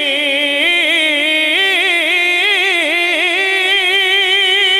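A man singing a Punjabi devotional song (a manqabat in praise of Ali), drawing out one long wordless note that winds up and down in ornamented melisma between lines of the lyrics.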